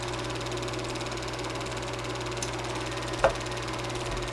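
Super 8 film projector running, a steady low hum under a fast, even mechanical rattle, with one sharp click about three seconds in.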